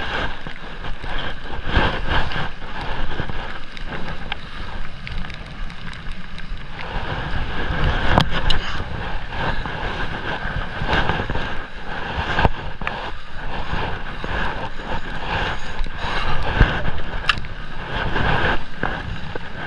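Wind buffeting the microphone over the wash of surf, with scattered knocks and bumps.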